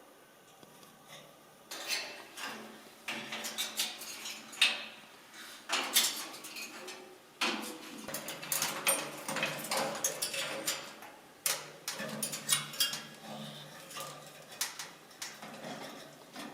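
A Cape Parrot moving about in its cage: irregular clattering, clicks and knocks against the cage bars and toys, starting about two seconds in.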